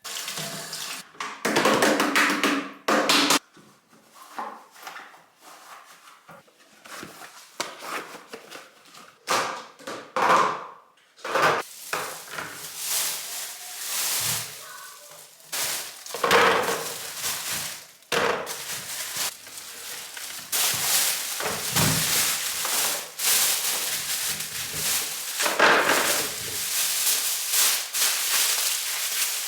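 Kitchen items being handled: irregular knocks, clicks and clatter of containers and dishes being picked up and set down, with rustling and scraping in between.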